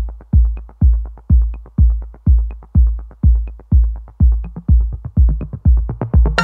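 Electronic dance music with a heavy kick drum on every beat, about two a second, and light ticks between the beats.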